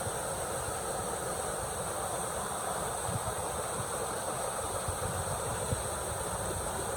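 Waterfall pouring into a pool, a steady rushing, with a steady high insect drone over it.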